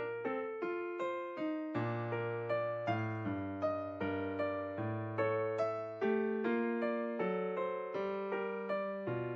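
Background music: a piano or electric piano playing a gentle melody, evenly paced notes over held bass notes.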